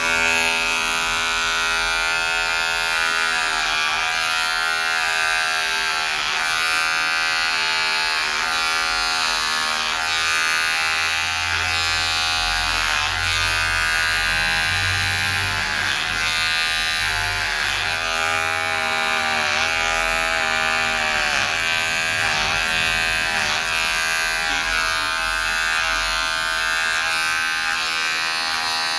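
Electric hair clipper running steadily as it is pushed through short hair. Its pitch dips briefly again and again as the blades take each pass.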